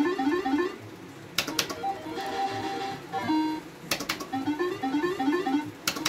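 Electronic jingles from a Crazy Monkey video slot machine. A short rising run of beeping notes repeats while the reels spin and ends on a held tone. A sharp click starts each spin, about every two and a half seconds.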